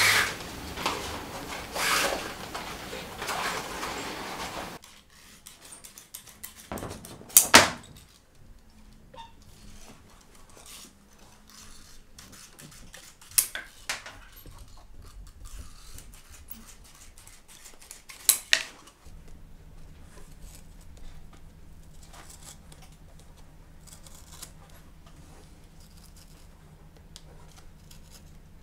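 Leather and metal hand tools at a shoemaker's bench. A dense scratchy rasping of hand work on the welt stops abruptly about five seconds in. A quieter run of small clicks and scrapes follows, broken by a few sharp metallic knocks, and a low steady hum comes in about two-thirds of the way through.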